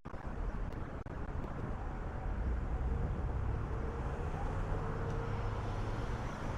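City street traffic: steady road noise with a vehicle's low engine hum that grows louder from about two seconds in.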